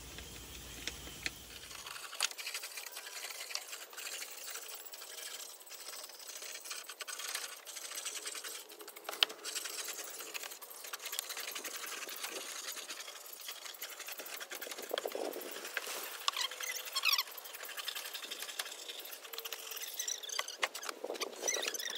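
Stiff brush scrubbing a wooden deck floor in quick back-and-forth strokes, scratchy and rapid. A few short high squeaks come in near the end.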